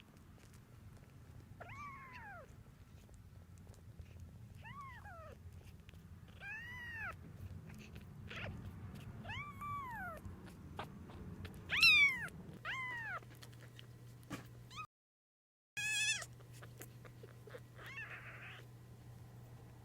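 Kitten meowing again and again, about seven separate high meows that each rise and fall in pitch, two of them louder and shriller than the rest.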